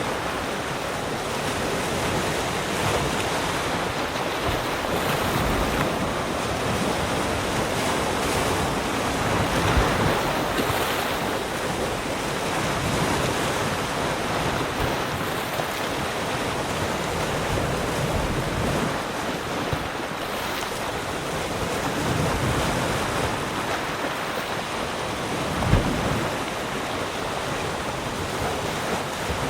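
Sea surf: waves washing in and breaking on the shore in a continuous rushing wash that swells and eases, with a brief low thump from a breaking wave about ten seconds in and again near the end.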